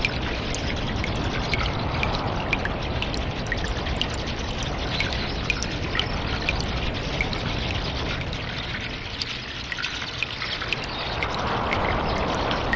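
Water in a cave: a steady trickle and rush of running water with many small drips falling irregularly, a few each second. The rush dips a little past the middle and swells again near the end.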